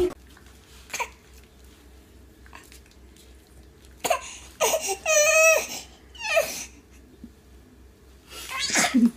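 A baby vocalising: a few seconds of near quiet, then short vocal sounds about four to six seconds in, including one high-pitched squeal with a wavering pitch, and another short sound near the end.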